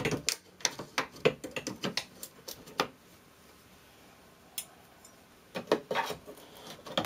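Sharp taps and knocks of hand tools, a pause of a couple of seconds, then more knocks near the end as a hammer and pry bar work at the top door casing to pry it off.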